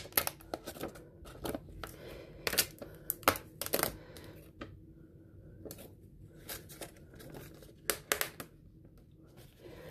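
Clear plastic protective film rustling and crinkling as it is handled and pulled off a phone, among scattered sharp clicks and taps of the phone and its cardboard box. The loudest clicks come in quick clusters about two and a half to four seconds in and again about eight seconds in.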